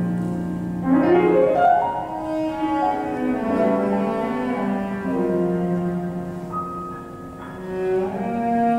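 Cello and piano duo playing contemporary Brazilian chamber music: a fast rising phrase about a second in, then longer held cello notes over the piano.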